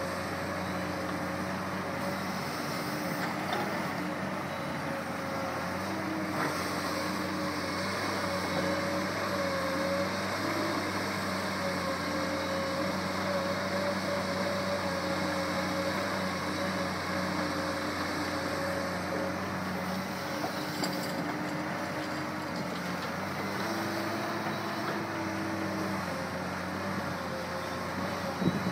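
Komatsu PC200-8 excavator's six-cylinder diesel engine running steadily under working load, its hum wavering slightly in pitch. A short knock comes near the end.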